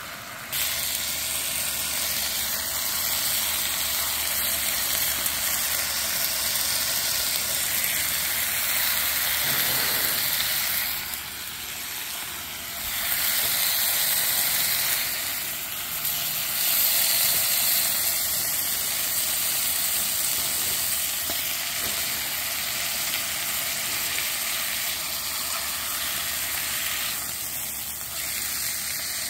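Thin cuts of meat sizzling in oil in a frying pan on a portable butane camp stove: a steady, dense frying sizzle that swells a little louder now and then.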